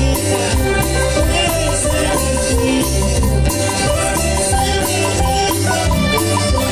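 Live band music at full volume: electric bass and guitars over a steady, danceable beat.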